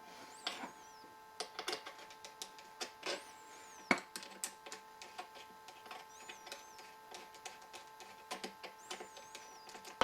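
Flathead screwdriver working the steel barrel band screw on a Ruger 10/22 rifle: irregular small clicks and scrapes of tool on screw and rifle, one sharper knock about four seconds in, over a steady faint hum.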